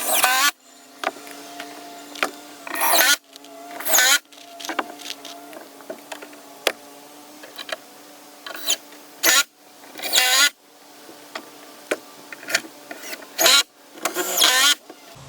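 Power drill driving wood screws into trim boards in a series of short bursts, its motor whining up and down with each screw, over a steady low hum.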